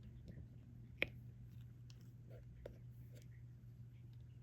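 Small clicks and taps of a diamond painting pen setting resin drills onto the canvas: one sharp click about a second in and a few fainter ticks later, over a low steady hum.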